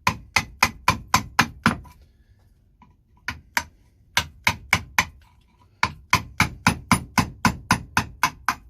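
Wooden mallet striking a chisel to chop a recess out of a block of wood, in quick even blows about four a second. The blows break off briefly a couple of seconds in, with two single strikes, then resume in a steady run.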